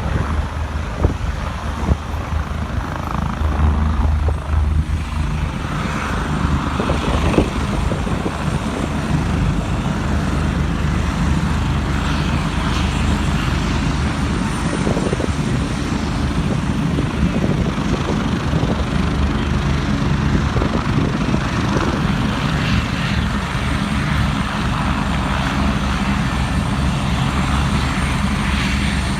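Eurocopter EC-145 twin-turbine helicopter running steadily, its rotor giving a rapid low pulsing beat under the turbine noise.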